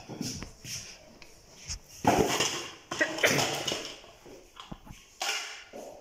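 Plastic weatherproof socket enclosure being handled, with a few sharp clicks and a loud stretch of scraping and rattling plastic about two seconds in as the hinged lid is worked off.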